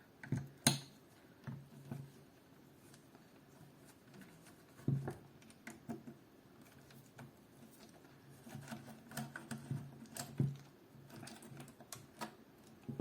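Irregular small clicks and taps of metal parts and tools being handled as a Picatinny rail is taken off an airsoft AK, with a couple of heavier knocks about five seconds in and again near ten and a half seconds.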